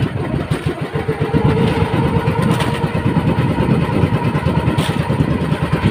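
Inboard engine of a motorized outrigger fishing boat running steadily with a fast, even pulsing, the boat under way at sea.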